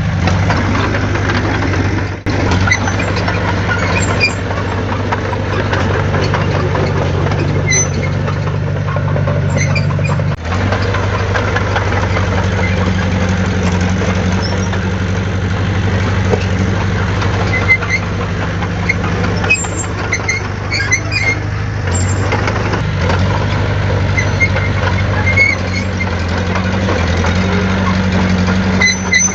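Diesel engine of heavy earthmoving equipment running, its pitch shifting a few times as the load or throttle changes, with faint high squeaks and clinks here and there.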